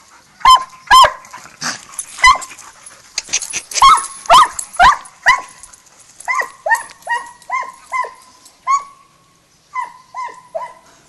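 Walker coonhound barking at a raccoon. Loud single barks for about the first five seconds, then a quicker run of fainter barks, two or three a second, with a short pause near the end.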